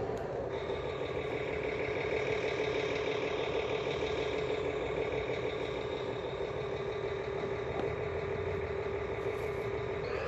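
Electronic engine-sound module in a 1/32 scale remote-control Volvo truck model, playing a steady diesel-truck idle through its small speaker.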